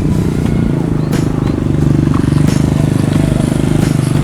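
A small engine running steadily, with a few sharp clicks or knocks over it.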